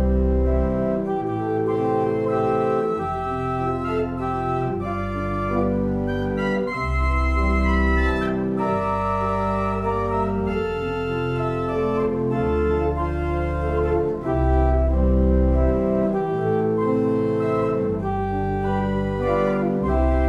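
Organ music: slow, sustained chords that change every second or two over deep bass pedal notes.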